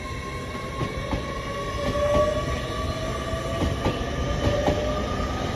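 LNER Class 801 Azuma electric train moving out, its traction drive whining in two steady tones that climb slightly as it gathers speed, over a low rumble with scattered wheel clicks on the rail joints.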